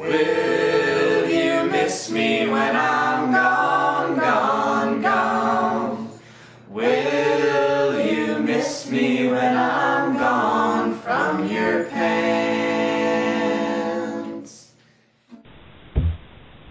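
A cappella singing with no instruments, the voices bending and holding pitch in phrases, fading out about a second before a cut. After the cut, a faint room sound with one short knock near the end.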